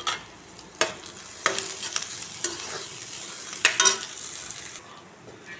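Chopped onion, garlic and cumin sizzling in hot oil in a metal kadai, the tempering stage of a dal fry, while a metal spatula stirs and scrapes against the pan. There are sharp scrapes and knocks every second or so, and the sizzle drops away about a second before the end.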